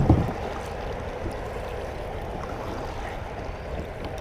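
Creek water rushing steadily around a kayak in a strong current, with a couple of heavy bumps right at the start.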